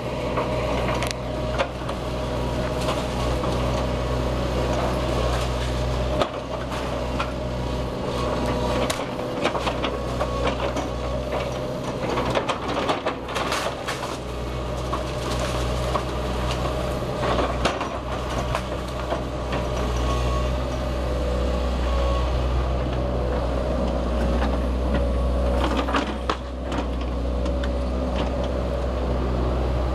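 Tracked hydraulic excavator's diesel engine running steadily under load, with irregular crashes and clatter of breaking wood and brick as the house is torn down, a dense run of impacts around the middle.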